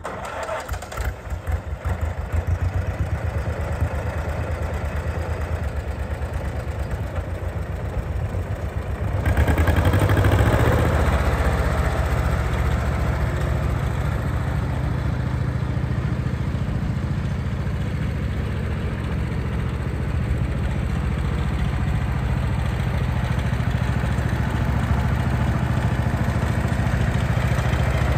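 1940 John Deere LA's two-cylinder engine running with a steady, dense firing beat as the tractor is driven at low speed. It gets noticeably louder about nine seconds in.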